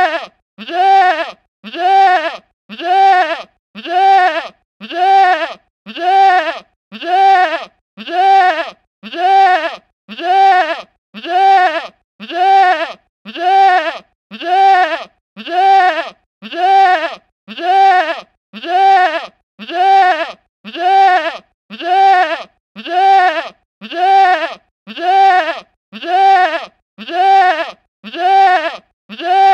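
Goat bleating: the same short bleat repeated evenly about once a second, each call rising and then falling in pitch.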